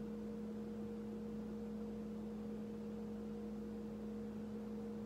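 Steady electrical hum made of two unchanging low tones over faint room noise.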